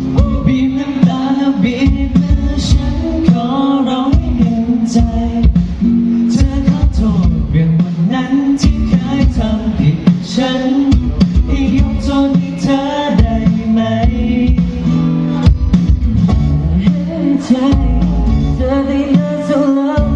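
A pop song with a singing voice over guitar and a steady beat.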